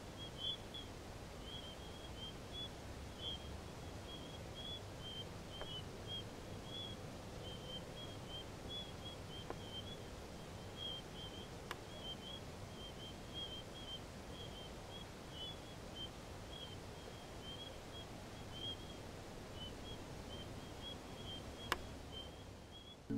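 Crickets chirping steadily at night over a low outdoor background hum, with a few faint sharp clicks, the loudest near the end.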